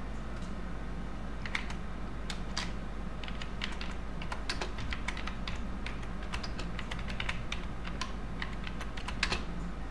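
Typing on a computer keyboard: irregular key clicks in quick runs with short pauses, starting about a second and a half in, over a faint steady hum.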